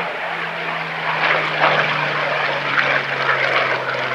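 Hawker Hurricane IIc's Rolls-Royce Merlin V12 engine and propeller running steadily in flight as it flies past, its engine note falling slowly in pitch.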